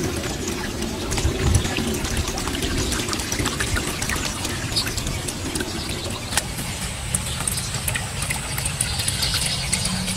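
Rain falling on a pond's surface, many small drop ticks in a steady wash, with wind rumbling on the microphone.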